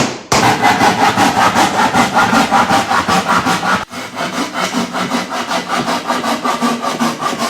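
A hand saw cutting through a wooden board with fast, even back-and-forth strokes, pausing briefly about four seconds in and then sawing on.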